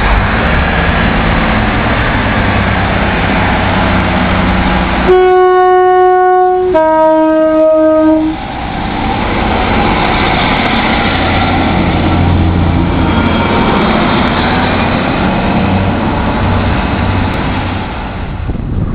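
Class 150 Sprinter diesel multiple unit's two-tone horn, a higher note then a lower note, each about a second and a half long, sounding about five seconds in. Around it the unit's underfloor diesel engines run steadily as the train pulls out past the platform.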